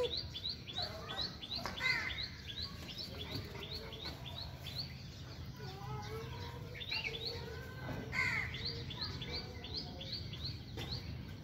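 Birds calling: quick runs of short, high, rising chirps at about four a second, broken by a few lower, harsher calls about two seconds in and again about eight seconds in.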